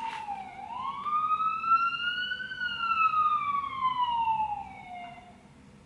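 Emergency vehicle siren wailing. It slides slowly down, then up, then down again in pitch, and fades away near the end.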